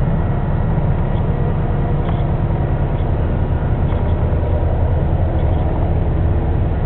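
Steady low drone of the power plant's diesel generator engines running under load, with a thin steady whine on top.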